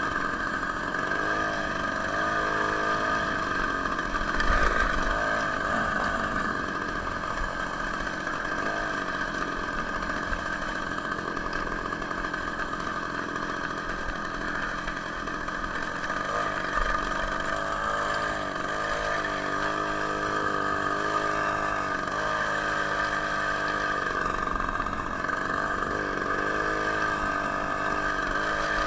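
Two-stroke engine from an Ural chainsaw driving a homemade moped, running continuously, its pitch rising and falling repeatedly as the throttle and load change.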